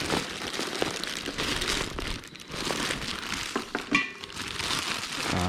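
Crinkling and rustling of packaging as a new sling bag is handled and unwrapped, with a few sharp clicks.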